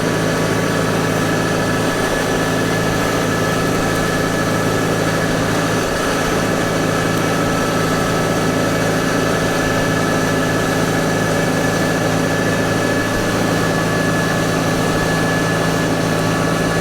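Engine of a farm vehicle carrying a hay bale, running steadily and loud as the bale is laid down, with a constant high whine over the engine's drone.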